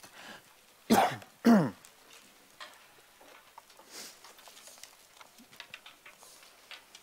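Two short, loud coughs close to the microphone, about a second in and half a second apart, each falling in pitch, followed by scattered light clicks and knocks as a congregation gets to its feet.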